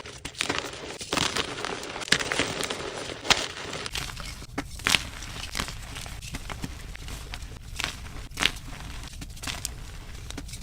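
Blocks of dyed gym chalk being crushed and crumbled, a continuous crackling crunch with frequent sharp cracks as pieces break. The texture changes abruptly about four seconds in, where one clip is cut to the next.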